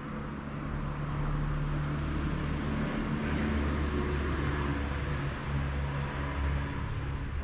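A motor vehicle's engine running with a low, steady hum and road noise, growing louder over the first second or so and then holding.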